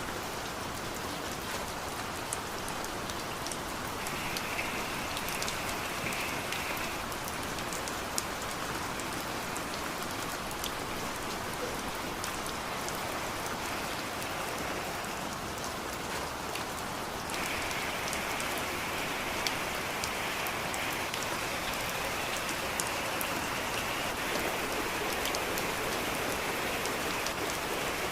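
Heavy rain falling steadily, a dense even hiss of rain on surfaces with scattered individual drop ticks.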